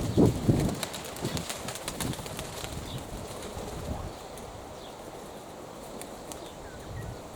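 Domestic sport pigeons cooing and flapping their wings, with strong wind gusting over the microphone in loud low bursts during the first two seconds.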